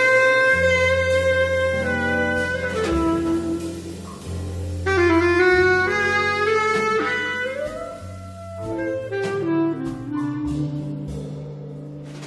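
Small jazz group playing live: a bass clarinet carries long held notes in phrases over electric bass, drums and electric guitar.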